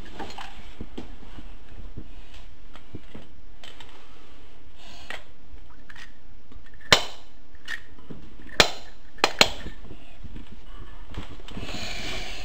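Hard plastic clacks from a green Tonka toy garbage truck and its toy trash bins being handled: a single sharp knock about halfway through, then three more in quick succession a couple of seconds later.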